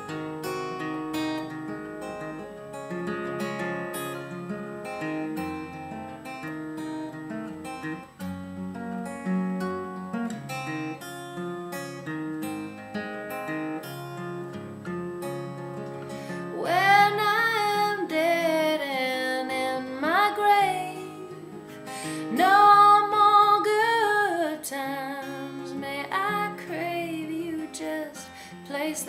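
Background music: acoustic guitar picking a folk tune, with a singing voice coming in about halfway through for two long phrases.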